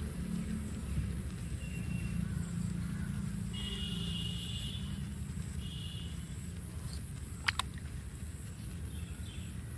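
A steady low mechanical rumble like a distant engine, with a few short high chirps like birds in the middle and a sharp double click about seven and a half seconds in.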